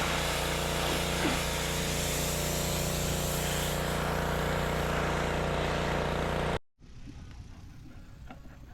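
Engine running at a steady speed, cut off abruptly about two-thirds of the way through. A much quieter outdoor background with a few faint ticks follows.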